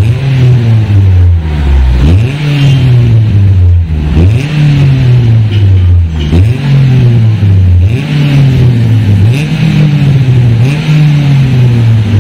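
Mitsubishi Lancer's four-cylinder engine revved through a K-Racing aftermarket muffler while standing, blipped again and again about every two seconds. Each rev climbs quickly and falls back to a low exhaust rumble.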